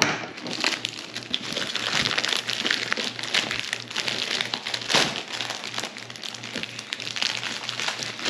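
Crinkly packaging wrap being torn and pulled off a cardboard box, a continuous crackling and ripping. There is a sharp rip right at the start and another loud one about five seconds in.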